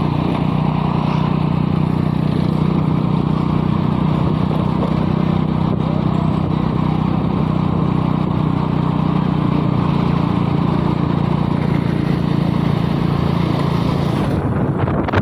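A motor running steadily with a constant low hum.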